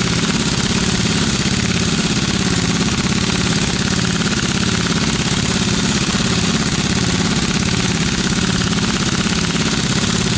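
Pneumatic impact wrench hammering continuously, a loud, rapid rattling that goes on without a break.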